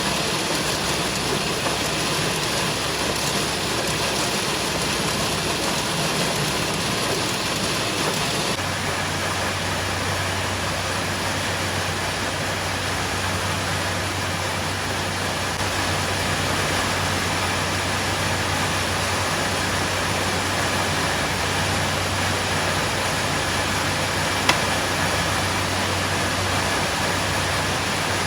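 Steady machinery noise, even and unbroken, with a low hum that comes in suddenly about eight seconds in.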